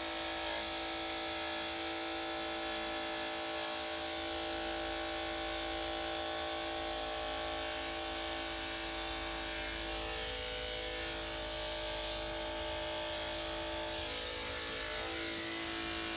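Electric dog grooming clippers fitted with a #7 blade running, a steady buzzing hum whose tone wavers a couple of times in the second half.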